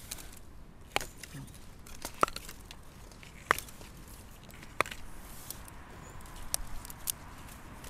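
Fresh Japanese knotweed stalks snapped off by hand: four loud, crisp snaps about a second and a half apart, then two fainter ones near the end.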